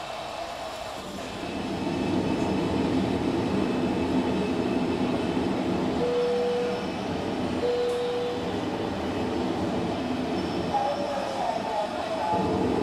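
An H0-scale model train running on the layout: a steady rumble of wheels on track that swells about a second and a half in, with two short horn toots about six and eight seconds in.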